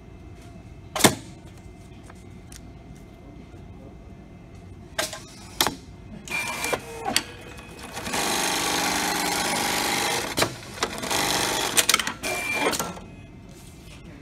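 Programmable pattern sewing machine sewing a label onto a cut fabric part: a few sharp knocks as the clamps and slide are set, then the machine stitches at speed for about two seconds, pauses briefly with a knock, and stitches for about two seconds more before stopping.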